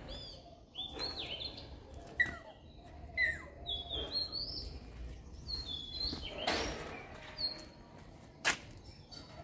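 Birds chirping with short, high calls that glide and step in pitch, repeated every second or so. There is a short burst of noise about six and a half seconds in and a single sharp click near the end.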